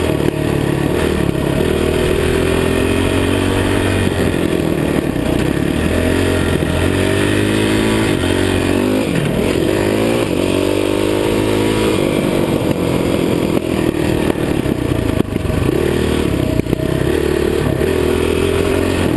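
Dirt bike engine running under way, its pitch rising and falling again and again as the throttle is worked and gears change, with a cluster of quick rev climbs about halfway through.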